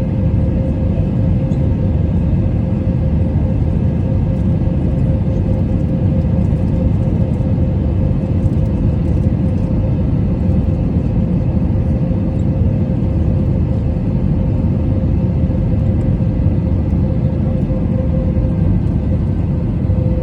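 Airbus A319 cabin noise in flight: a steady, loud rumble of engines and airflow, with a steady hum from the engines over it.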